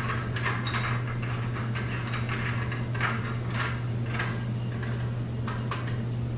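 Glass pendant-light shade being twisted by hand to tighten it onto the lamp socket: faint irregular scrapes and light clicks of glass against the threaded fitting, over a steady low hum.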